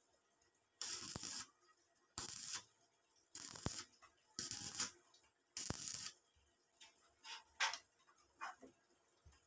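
Stick welder arcing on the metal stove frame in short bursts: five crackling arcs of about half a second each, roughly a second apart, then a few light clicks and taps near the end.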